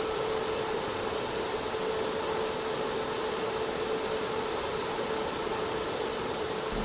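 Large 1200 mm, 100 hp mine ventilation fan running: a steady rush of air with a steady hum-like tone over it.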